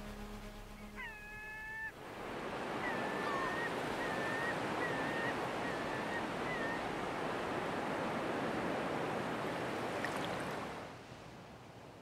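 Surf washing on a beach with gulls calling: one drawn-out call, then a quick run of about six short calls. The wash of the surf comes in about two seconds in and fades out near the end.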